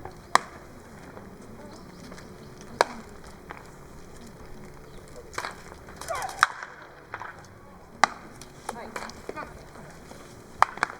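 Five sharp baseball impacts a few seconds apart, ball against bat or mitt, over steady spectator murmur, with a voice calling out around the middle.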